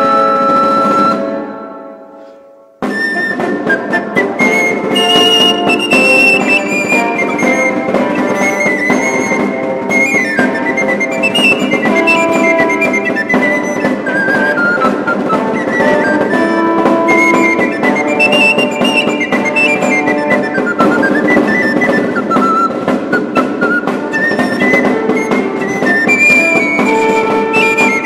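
Background early-music instrumental piece. One passage fades out and a new one starts abruptly just under three seconds in, with a winding flute melody over accompaniment and light percussion.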